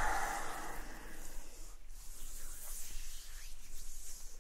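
Oiled hands rubbing close to the microphone in a simulated massage: a soft, slippery hiss, loudest in the first second, then quieter.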